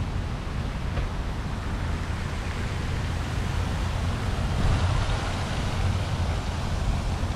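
Outdoor ambience with wind on the microphone: a steady low rumble under an even hiss, swelling slightly a little past the middle.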